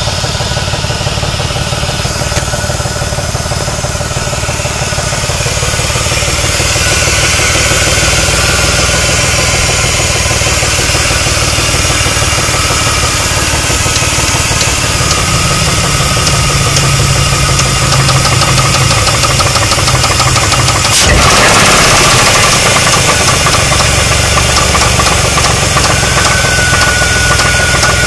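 Chrysler 300M's 3.5-litre V6 running with a fast, steady knocking from the bottom end, which the owner puts down to a warped connecting rod and worn rod bearings. A single sharp noise stands out about three-quarters of the way through.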